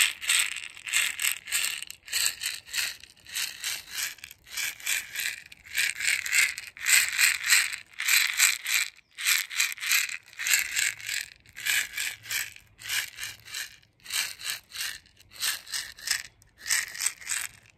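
A woven basket rattle shaken in a quick, even rhythm of about three or four shakes a second, a dry rustling rattle of seeds or beads inside. It breaks off briefly twice, about nine and fourteen seconds in.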